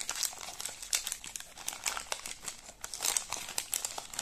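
Paper wrapper of a 1989 Topps baseball card wax pack crinkling and tearing as it is peeled open by hand, a dense run of irregular crackles.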